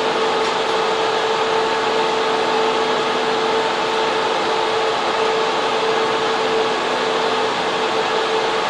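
Server room in a data center: the steady roar of server cooling fans and air-conditioning, with a constant hum running through it.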